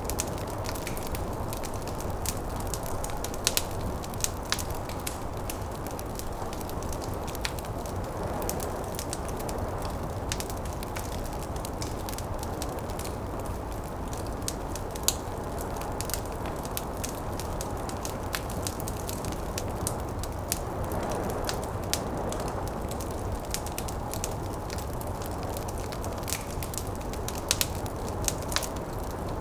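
Wood fire crackling in a fireplace, with sharp irregular pops over a steady low rush of flame and wind.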